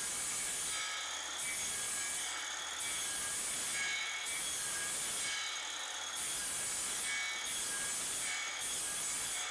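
Milwaukee circular saw cutting a series of shallow, side-by-side kerfs across a wooden board to clear out a notch. The cutting sound is continuous, easing off briefly between passes about every one to two seconds.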